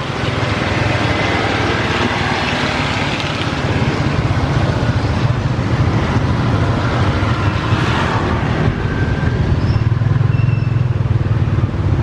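A vehicle's engine running steadily, with a wide hiss of heavy rain and wet road noise over it.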